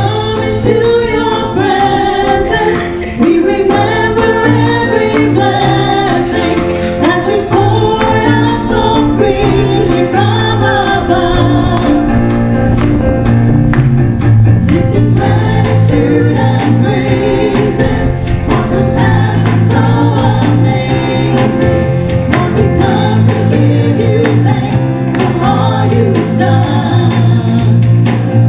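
Women's voices singing a gospel song together, with electronic keyboard and acoustic guitar accompaniment holding long low notes underneath.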